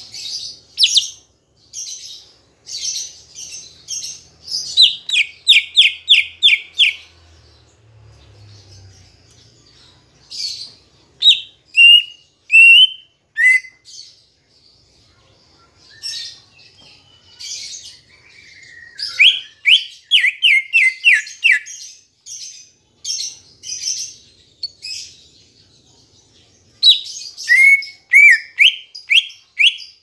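Male greater green leafbird (cucak ijo) singing in phrases of quick high chips and whistled notes. The phrases include fast runs of five or six repeated sweeping notes, with short pauses between them.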